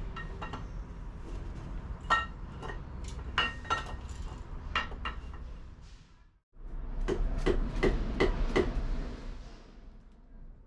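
Metal hand tools and loose bolts clinking against metal while rocker-cover bolts are being removed: a series of sharp, ringing clinks at irregular spacing. The sound breaks off briefly about six and a half seconds in, then a quicker run of clinks follows.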